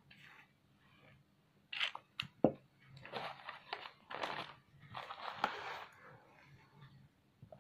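Handling noise as objects are moved about on newspaper: rustling and crunching in several bursts, with a couple of sharp clicks about two seconds in.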